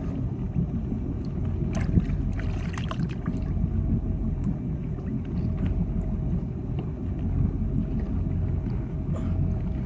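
Wake boat's inboard engine running with a steady low rumble, with a few light knocks about two seconds in.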